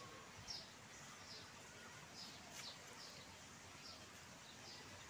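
Faint, high bird chirps repeating every half second or so over a quiet outdoor background.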